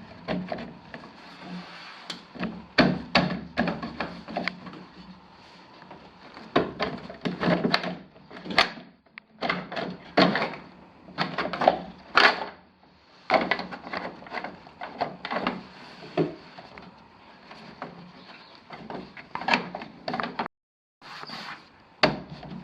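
Plastic shroud of an elliptical trainer being bent and worked into place by hand: irregular knocks, clicks and scrapes of plastic against the frame.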